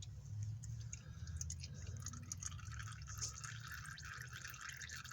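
Used engine oil dripping and trickling into a drain pan in faint, irregular ticks, over a low steady rumble.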